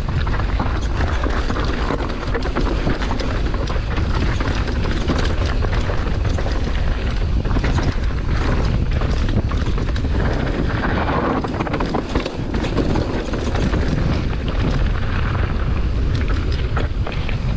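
Wind buffeting an action-camera microphone while a Specialized Status mountain bike descends a rough downhill track at speed, with constant rattling and clatter from the tyres and bike over the rocky ground.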